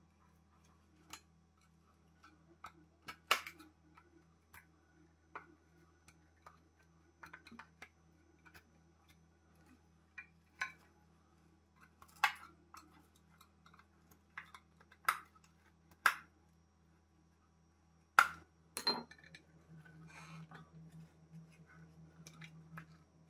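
Irregular clicks, clinks and knocks of hand tools and headlight parts being handled on a stone worktop, a few sharper knocks standing out, the loudest two near the end. A faint steady low hum runs underneath.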